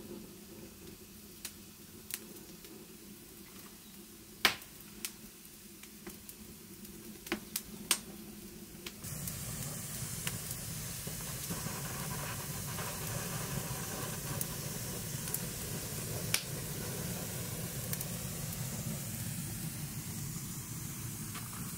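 A few sharp clicks and snaps. Then, about nine seconds in, a small twig fire catches and keeps burning with a steady hiss and occasional crackles.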